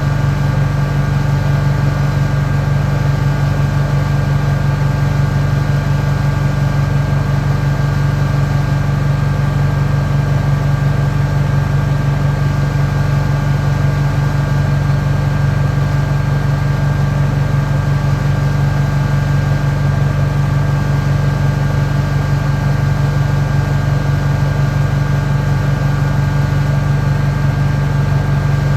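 Compact track loader's diesel engine running at a steady, unchanging speed, a loud low hum.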